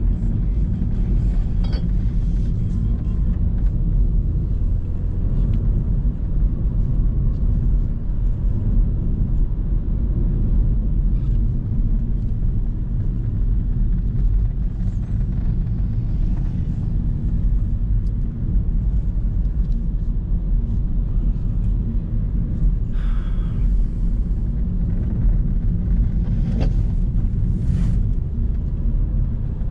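Steady low road and engine rumble inside the cabin of a moving Renault Megane 4, with a few brief knocks near the end.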